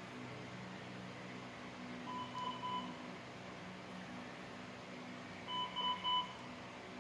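Hospital bedside monitor alarm beeping in two groups of three short beeps, about three seconds apart, over a steady low hum.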